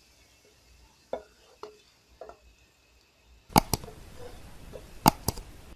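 Metal spoon knocking against a pan: a few light taps, then a steady frying sizzle with several sharp clanks from about three and a half seconds in.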